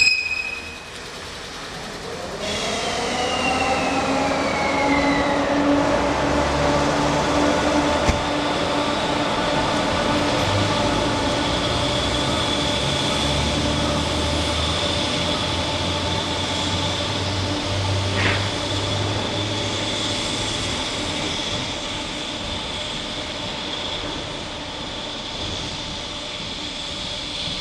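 Electric train pulling away: a brief high toot at the start, then motor whine rising in pitch over a few seconds and settling into a steady hum with several held tones.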